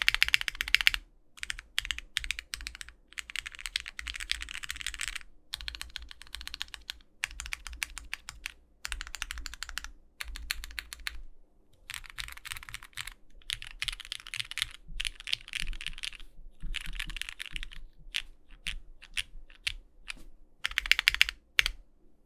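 Typing on a Bakeneko60 mechanical keyboard with lubed Hyperglide Cherry MX Black linear switches on an aluminum plate and GMK keycaps: crisp, full clacks in runs of a second or two, broken by short pauses. The case has no foam, which leaves a slight hollowness, most of all on the right-side modifier keys.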